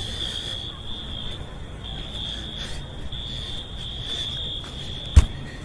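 School fire alarm sounding a high-pitched tone, set off by a malfunction as a false alarm. A sharp click comes about five seconds in.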